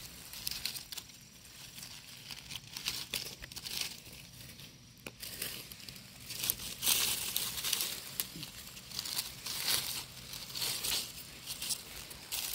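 Dry fallen leaves rustling and crunching in irregular bursts as someone moves through leaf litter picking up chestnuts. The rustling grows louder and busier about halfway through.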